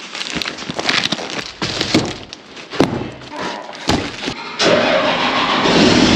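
Cardboard boxes wrapped in plastic being handled, a run of knocks, scrapes and crinkles. About four and a half seconds in, a steady, louder machine noise sets in.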